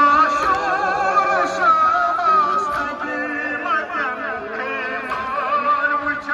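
A man's voice singing a noha, a Shia lament, into a microphone and carried over horn loudspeakers. The melody wavers and bends, and it comes in suddenly right at the start.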